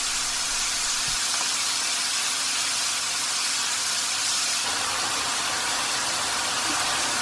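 Chicken liver frying in hot oil in a pan, sizzling with a steady hiss.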